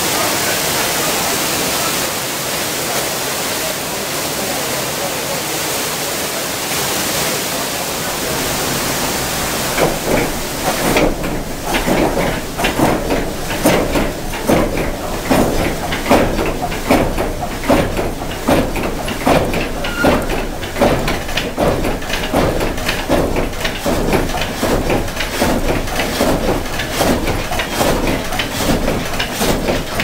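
Water rushing steadily for the first ten seconds or so. Then, about eleven seconds in, a water-wheel-driven vertical frame saw starts running, its blade going up and down through a log in a steady rhythm of strokes.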